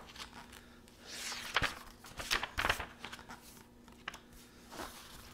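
Pages of a hardcover book being turned and handled: a handful of short, soft papery swishes and rustles.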